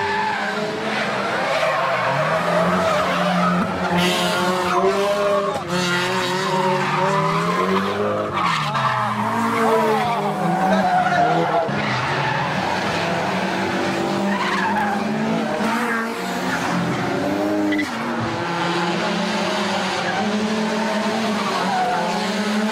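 Two drift cars sliding through corners together, their engines revving up and down again and again with tyres skidding and squealing.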